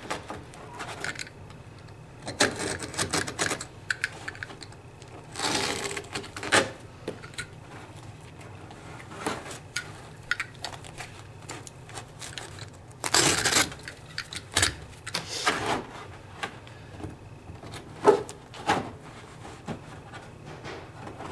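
Stair carpet being folded back, sliced with a utility knife and pressed into a corner against a wall: scattered bursts of scraping and rustling at irregular intervals, a few of them loud.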